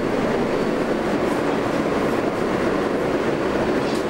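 Steady, even hum and rush inside a Kawasaki R143 subway car standing at a station with its doors open, with a faint steady high tone over it. A light click comes near the end.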